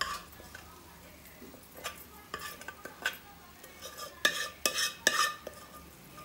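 Metal bowl and pot clinking while tamarind paste is scraped out of the bowl with a spoon into a pot of cooked rice: a run of light knocks and scrapes, loudest in a cluster of sharp clinks about four to five seconds in.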